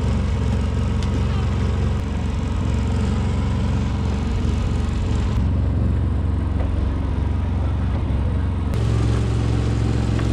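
A small lobster boat's outboard motor running steadily, a low even drone with wind and water noise over it; its tone shifts abruptly twice.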